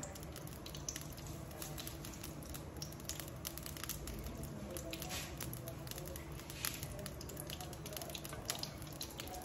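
Whole spices sizzling in hot desi ghee in a steel kadhai: a steady fry noise with irregular small pops and crackles, and a low steady hum underneath.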